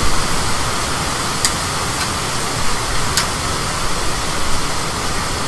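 Steady rushing noise of a high-wind storm, wind and rain on the microphone, with two short sharp ticks.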